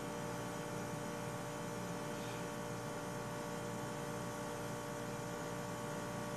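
A steady electrical hum, several fixed tones held over a soft hiss, unchanging throughout.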